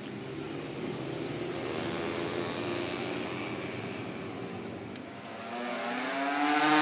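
Street traffic: a motor vehicle's engine running past, growing louder toward the end as it comes close.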